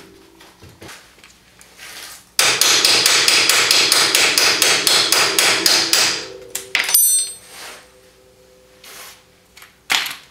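Rapid hammer strikes on metal for about three and a half seconds, starting about two seconds in, driving a UTV's front spindle up onto its ball joint. A few single knocks come before and after.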